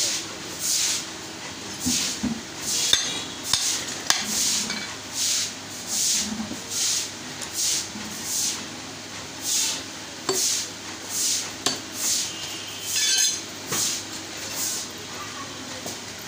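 Butcher's knife cutting beef on a wooden chopping block: a steady rhythm of short swishing strokes, a little over one a second, with a few sharp clicks among them. The strokes stop about a second before the end.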